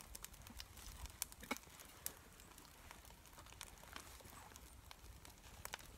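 Faint, irregular crackles and clicks from a small fire of birch bark and dead twigs catching in a wood-burning camp stove.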